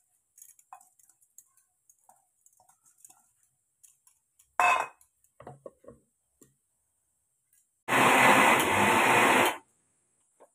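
Electric mixer grinder running at full speed for under two seconds, grinding soaked flattened rice into batter; it starts and stops abruptly. A short clatter of the steel jar and lid comes about halfway, before the grinding.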